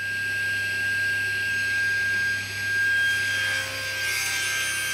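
Table saw running at speed, a steady high-pitched whine over a low motor hum. It turns noisier and rougher near the end.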